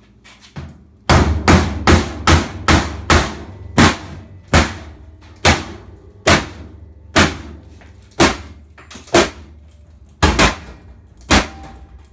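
Hammer driving a screwdriver into a washing machine's sheet-metal cabinet to cut it by hand: about fifteen sharp metallic blows, quick at first and then slowing to about one a second. The hand-tool cut is not getting through the metal.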